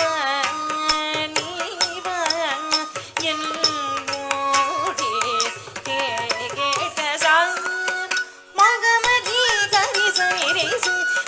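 Carnatic music for a Bharatanatyam varnam in raga Kamas, adi talam: an ornamented melody that slides between notes over a steady run of sharp percussion strokes. It breaks off for a moment about eight seconds in, then resumes.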